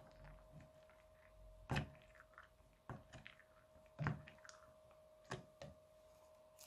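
Thick slime with foam beads stirred and pressed with a silicone spatula in a glass dish, giving about five short sticky clicks and pops, the loudest about two and four seconds in. A faint steady hum runs underneath.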